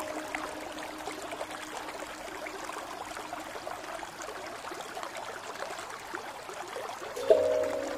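Background relaxation music with a trickling-water ambience, a steady hiss between sparse held notes; a new chime-like note comes in near the end.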